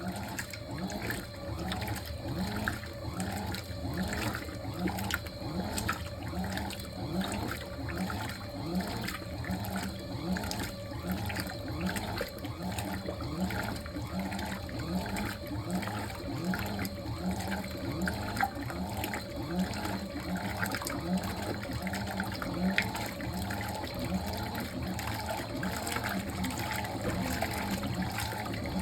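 Fisher & Paykel MW059NZ top-loading washing machine running early in its cycle: water flowing in the machine with a regular rhythmic pulsing. It turns louder and gushier right at the end.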